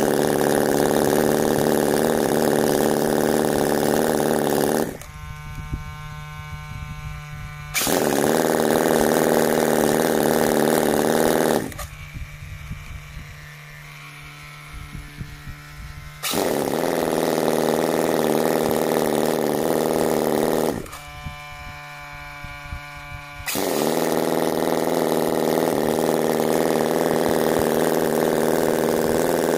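Cison L4 model engine, a water-cooled four-stroke inline four-cylinder gasoline engine, running and being revved. It runs fast and loud in four spells of about four seconds each and drops back to an even idle between them.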